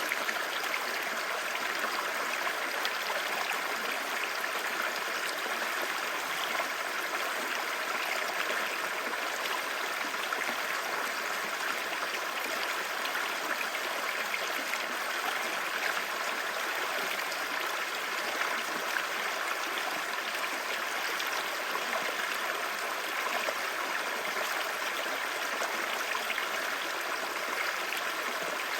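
Clear, shallow river babbling steadily over stones.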